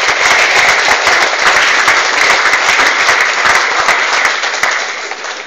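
Audience applauding: dense clapping from many hands in a hall, dying away near the end.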